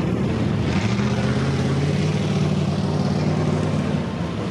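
Argo Avenger 8x8 amphibious ATV's Kohler Aegis LH775 V-twin engine running steadily under load as the machine ploughs through a muddy pond, with water churning and splashing around it. The engine note drops away about four seconds in.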